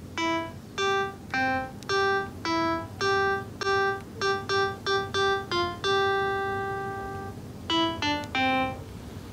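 A simple tune played one note at a time on a piano-like keyboard, with one long held note about six seconds in and a quick run of notes near the end.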